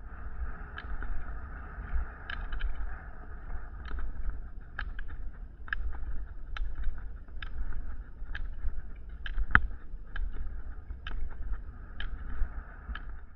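Rollerskis rolling on asphalt with wind rumbling on the microphone. Sharp clicks come about once a second, the ski-pole tips striking the pavement.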